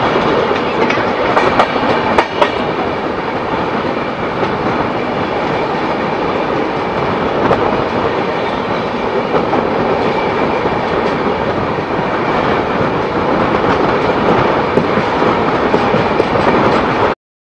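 A passenger train running along the track, heard from the open doorway of a moving coach: a steady rumble of wheels on rail with clickety-clack, and a few sharp clacks in the first few seconds. It cuts off suddenly near the end.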